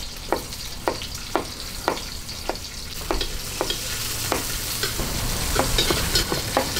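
Sliced red onion sizzling in hot oil in a metal wok while a metal ladle stirs and scrapes the pan, with sharp clicks about twice a second. The sizzle grows louder over the last few seconds.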